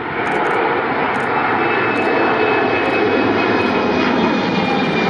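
Embraer E190 jet airliner's two GE CF34-10E turbofans at takeoff power as it climbs out close overhead: loud, steady jet noise with a high fan whine running through it.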